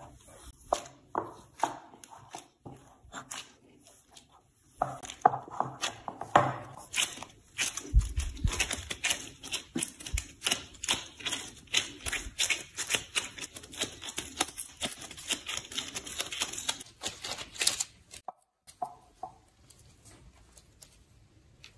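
Gloved hands kneading and squeezing crumbly butter pastry dough in a bowl: quick, irregular squishes, crackles and rustles of the dough and the disposable gloves. It drops away shortly before the end, leaving only faint handling.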